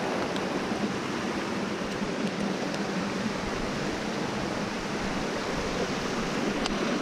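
Steady rushing of a creek tumbling over rocks, with a few faint clicks.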